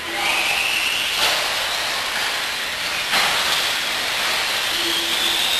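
Electric radio-controlled off-road buggies racing: a high motor whine rising and falling over a steady rushing noise, with two sharp knocks about two seconds apart.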